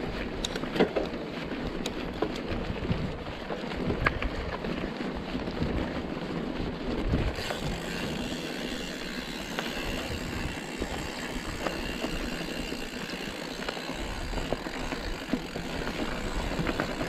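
Mountain bike rolling over a loose, stony track: a steady rush of tyre noise with frequent small knocks and rattles from stones and the bike, with wind on the microphone.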